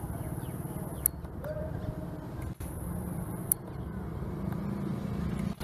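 EMD diesel locomotive approaching with a passenger train, its engine giving a low, steady, pulsing throb. There is a brief break in the sound about halfway through, and a sharp tick twice.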